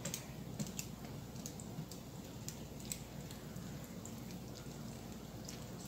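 Silicone spatula stirring shredded jackfruit in a thin buttermilk marinade in a stainless steel bowl: faint wet squishing with scattered light clicks.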